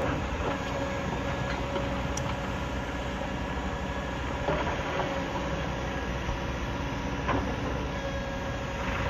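Heavy machinery at work: a Kobelco crawler excavator's diesel engine running steadily under load as it digs into a rocky hillside, with a few sharp knocks of rock and steel.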